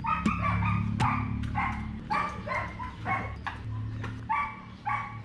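A dog barking repeatedly, about two short barks a second.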